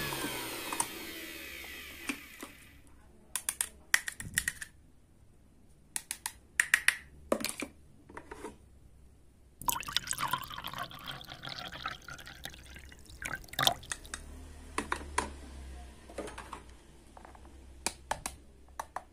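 A battery-powered toy hand mixer whirring down to a stop, its pitch falling, then sharp clicks and knocks of plastic toy parts being handled. About ten seconds in, liquid is poured from the mixer's plastic bowl into a small paper cup for a few seconds, rising in pitch as the cup fills, followed by more light plastic taps.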